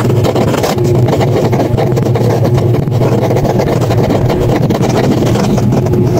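Steady low mechanical drone, an even engine-like hum with no breaks or changes in pitch.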